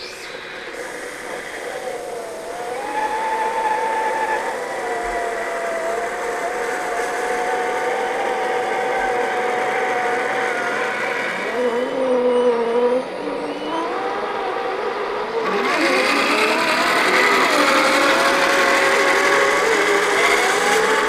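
Electric motors and geartrains of 1/10-scale RC crawler trucks whining as they crawl. The pitch rises and falls with the throttle, and in the second half several whines at different pitches overlap and glide past each other.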